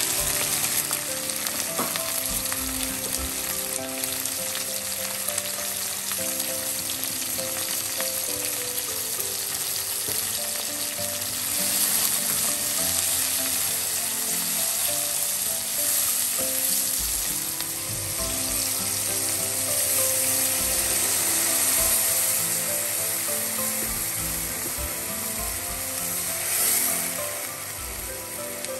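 Sliced onions frying in hot oil in an aluminium pot, a steady sizzle as they are stirred with a wooden spoon, with background music underneath. Near the end the sizzle briefly surges, then drops quieter as water goes into the pan.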